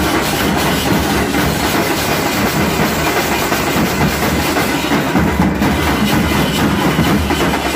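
Nasik dhol troupe: several large barrel drums beaten with sticks in a fast, dense, unbroken rhythm.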